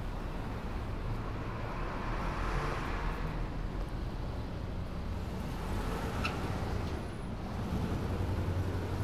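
Street traffic ambience: a steady low hum under even road noise, swelling and fading once a few seconds in like a vehicle passing, with a faint brief click about six seconds in.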